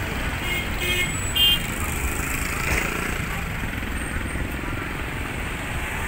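Road traffic: vehicle engines running low as a car and motorcycles pass slowly, with three short horn beeps in the first second and a half.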